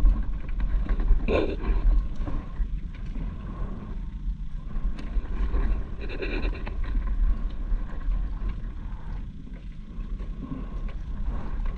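Uneven low wind rumble on the microphone, with a couple of brief faint sounds about a second in and again about six seconds in.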